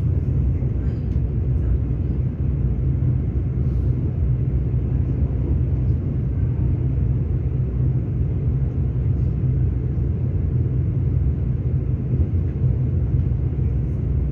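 Passenger train running at speed, heard from inside the carriage: a steady low rumble of wheels on the rails and running gear.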